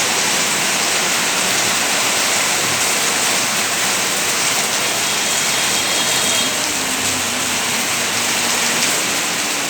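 Steady rain falling, a loud, even hiss.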